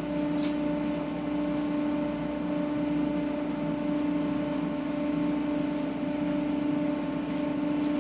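Steady machinery hum of a Boeing 929 jetfoil, heard on board: its gas turbines and waterjets running with an even, pitched drone over a constant rushing hiss.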